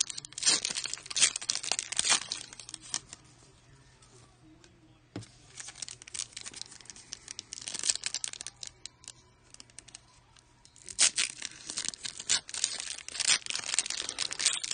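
Foil trading-card pack wrapper being torn open and crinkled by hand: loud crackling for the first few seconds, quieter scattered crinkles in the middle, then loud crinkling again from about eleven seconds in.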